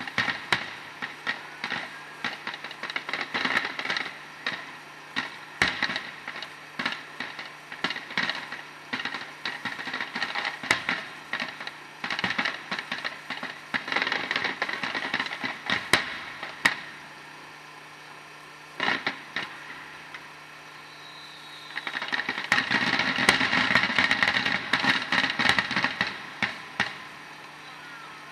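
Fireworks crackling: thick clusters of sharp snapping pops in several waves, with a lull of a few seconds past the middle.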